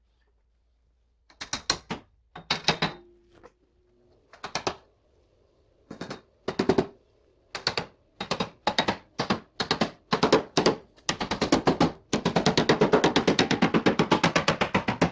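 Sill trim strip being tapped down onto its barbed retaining clips on a Triumph Spitfire body: a run of sharp knocks, scattered at first, then quickening into a fast unbroken patter of more than ten strikes a second over the last few seconds.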